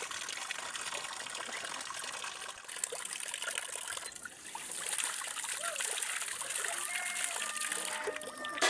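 Water trickling and splashing steadily, growing a little stronger about five seconds in. A few short chirping calls come near the end, and a sharp click just at the end.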